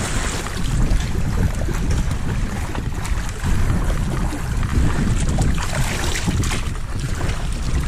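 Wind buffeting the microphone in an irregular low rumble, over water sloshing around a stand-up jet ski's hull.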